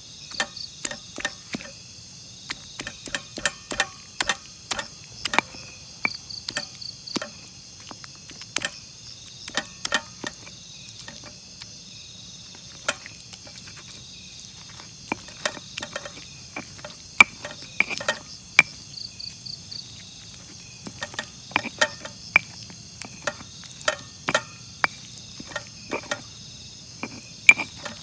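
Irregular sharp knocks, often several a second in short runs, of sambal being made by hand, over a steady chorus of crickets.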